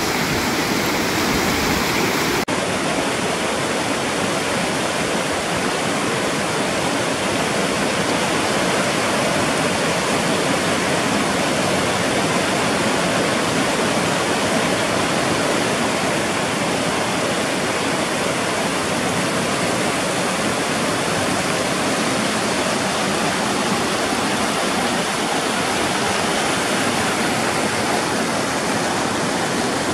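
Glacial mountain creek and waterfall rushing over rocks: a steady, loud rush of white water.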